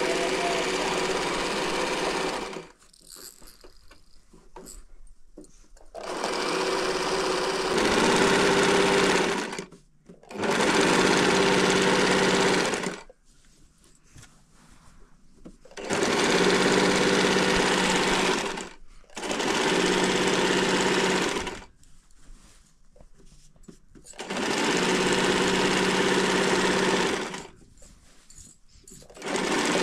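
Kachiran electric sewing machine stitching fabric in repeated runs of a few seconds each, about six of them, with short pauses between runs and another run starting right at the end.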